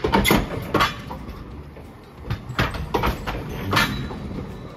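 Green Mover articulated tram passing slowly, its wheels clacking over the rail joints and crossing points of a track junction: about six sharp, unevenly spaced clacks over a low running rumble.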